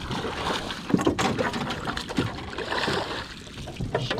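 Water splashing and sloshing with scattered knocks against the boat as a hooked trout is brought alongside and scooped into a landing net.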